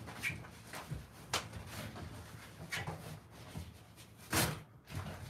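Handling a large cardboard shipping box: a string of short cardboard scrapes, rustles and knocks as its top is worked open, the loudest a brief crackle about four seconds in.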